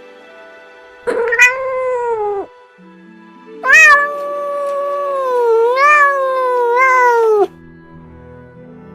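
Domestic cat meowing twice over background music: a short meow about a second in, then a long, drawn-out yowl of about four seconds whose pitch dips and rises.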